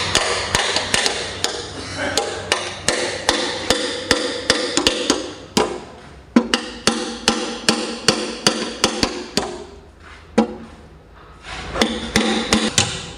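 Hammer driving a steel punch against a Mitsubishi forklift engine block: quick, ringing metal-on-metal blows, about four a second. The blows stop briefly about ten seconds in and start again near the end.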